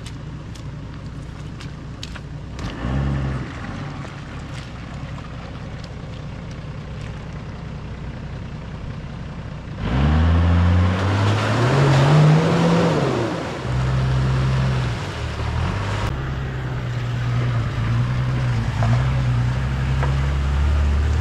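Toyota Land Cruiser ute's engine running: a quiet, steady hum at first, then, from about halfway through, loud and close. It revs up and falls back once, then keeps running with small rises and falls in revs as the truck drives.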